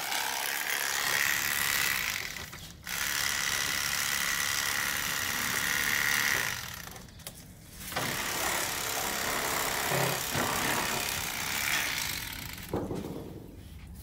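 Electric fillet knife buzzing as its reciprocating blades cut walleye fillets. It runs in three spells, stopping briefly about two and a half seconds in and again for over a second around the middle.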